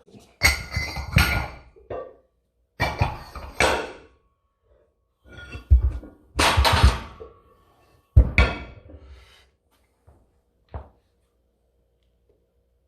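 Heavy iron weight being handled and set down on the floor: a series of separate heavy thuds and knocks, about five in all, spaced a second or two apart.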